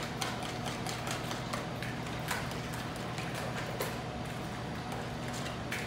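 A whisk beating eggs and milk in a large mixing bowl, clicking rhythmically against the bowl's sides.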